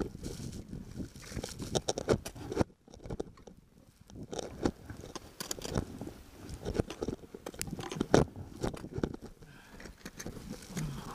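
Close crunching and scraping of snow and rock under a climber's boots and gloved hands, in irregular bursts, with a short lull about three seconds in.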